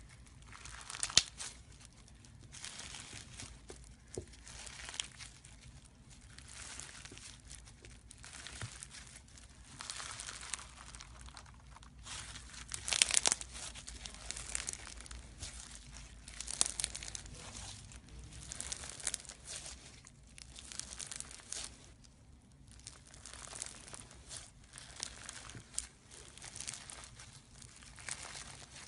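Slime being squeezed, stretched and poked by hand: a continuous run of crackling, crinkling sounds with small pops and clicks, loudest about a second in and again around thirteen seconds in.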